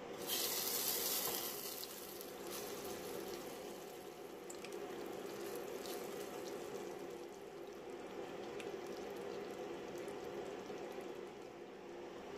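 Thick curry sauce being ladled into a bowl: a wet pour and slop, with a few faint clicks of the metal ladle over a steady hiss. The hiss is louder for the first second or two.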